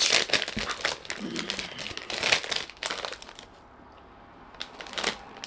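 Shiny plastic snack bag of Andy Capp's Fire Fries crinkling as it is handled and opened, with dense rustling for the first few seconds, then quieter, with a few single crackles near the end.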